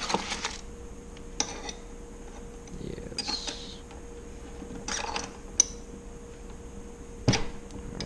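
Scattered metallic clicks and clinks as the nosepiece on the tip of a small rivet gun is handled and changed between rivet sizes, with a brief rattle of parts being picked through in a plastic bin at the start. The sharpest click comes near the end, with a faint steady hum underneath.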